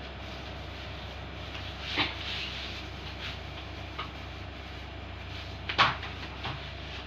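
A few short knocks and bumps of things being handled or set down in a kitchen, like a cupboard or drawer shutting, the loudest about three-quarters of the way through, over a steady low hum.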